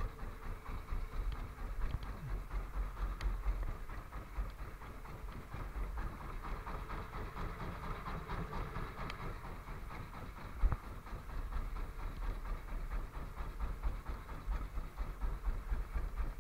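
Engine of a small wooden fishing boat running steadily under way, with wind buffeting the microphone, and a single thump about two-thirds of the way through.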